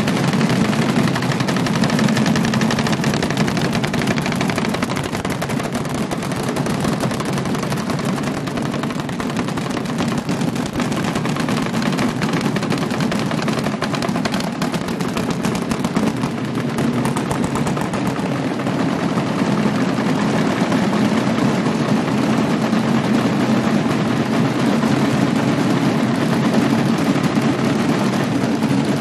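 Many wooden boxes beaten rapidly and without a break by a group of drummers, making a dense, continuous rattling clatter that carries through a reverberant church. This is the Good Friday drumming done in place of church bells while the Blessed Sacrament is carried to the main altar.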